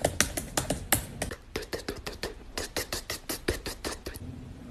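A woman making sound effects with her mouth: a quick string of beatbox-like clicks and pops, several a second, that stops a little after four seconds in.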